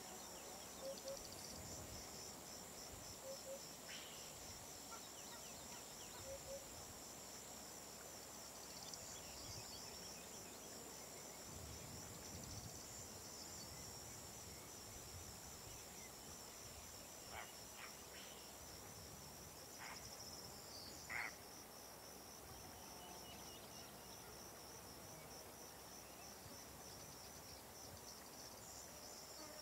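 Faint insects chirring: a steady, high-pitched pulsing trill, with a few soft short chirps or ticks, one a little louder about two-thirds of the way through.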